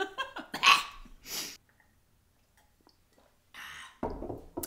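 Two women laughing in short breathy bursts that die away after about a second and a half. Near the end comes a brief breathy sound and a few soft knocks.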